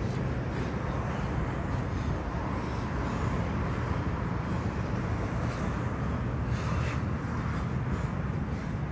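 Steady urban traffic noise with a constant low hum, a few faint brief sounds around the middle.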